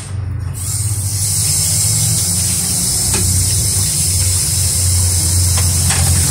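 Kitchen tap water running steadily onto a metal wok in a stainless steel sink as it is rinsed; the water starts about half a second in. A low steady hum runs underneath.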